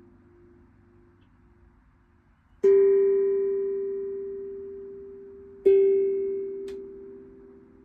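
Tuned metal percussion from a collection of tongue drums and chimes: a fading note pulses away, then two single notes are struck about three seconds apart, each ringing clearly and dying away slowly.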